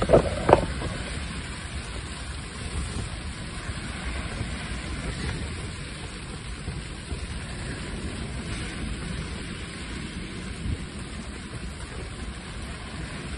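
Rain pattering steadily on a fishing shelter's canopy, over a steady low rumble. Two brief louder noises come right at the start.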